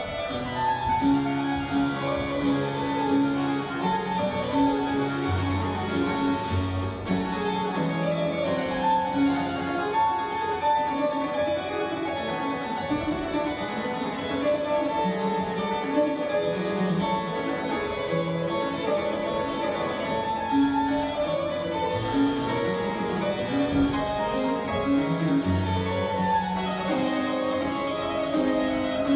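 Solo harpsichord playing Baroque sonata music, a continuous run of quick, plucked notes.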